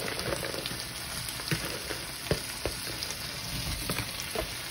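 Fried potato cubes sizzling in a hot pan with brava sauce, with scattered sharp pops and crackles, the loudest about two and a half seconds in.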